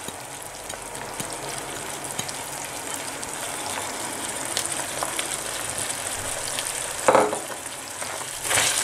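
Minced beef and chopped onions sizzling steadily in a hot frying pan, as the onions and garlic are added for browning. There is a short knock about seven seconds in, and a wooden spoon starts scraping and stirring near the end.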